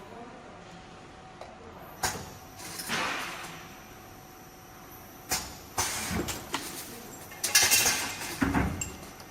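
Vertical form-fill-seal packaging machine running: separate sharp clacks of its mechanism, a swelling hiss about three seconds in, and a burst of rapid clattering knocks in the second half.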